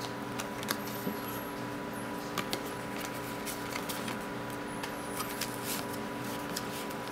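Cardboard trading cards handled one by one, slid and flicked through the fingers with soft scattered clicks and rustles, over a steady background hum.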